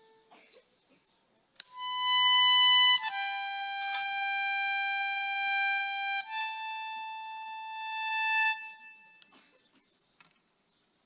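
Harmonica playing three long held notes, starting about a second and a half in: a high note, a lower one, then one a little higher again. The last note swells and stops about eight and a half seconds in.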